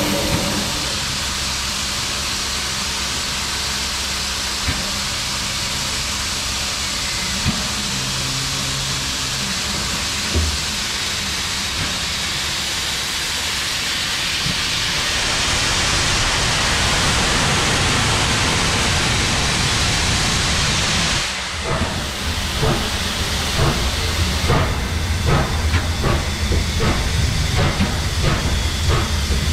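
Steam locomotive 3801 hissing steadily as steam vents around its front end. The hiss grows louder about halfway through, dips briefly, and then gives way to a run of regular exhaust chuffs about 22 seconds in.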